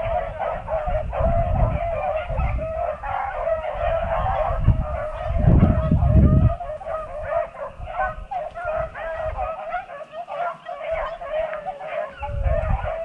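A pack of beagles bays continuously as it runs a rabbit, with many high, wavering hound voices overlapping. Low rumbles come through on the microphone, loudest about six seconds in.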